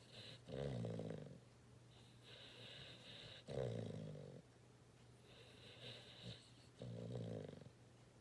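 A sleeping dog snoring: three rasping snores about three seconds apart, each with a soft hissing breath between.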